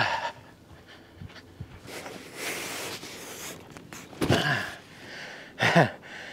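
A large cardboard box scraping and rustling as it is handled and lifted, then two short grunts from the man lifting it, one about four seconds in and one near the end.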